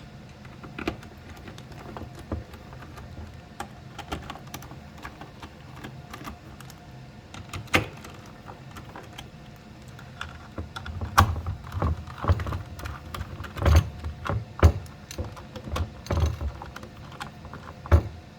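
Irregular light clicks and taps of a screwdriver and metal equipment parts being handled, with several heavier knocks and thumps in the second half.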